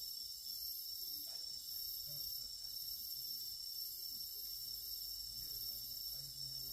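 Crickets chirring in a steady, high-pitched chorus.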